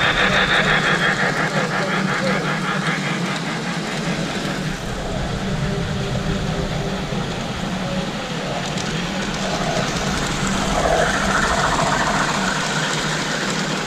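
Tinplate model trains running on three-rail metal track: a rapid metallic clatter of wheels over the rails, strongest in the first couple of seconds, over a steady low hum.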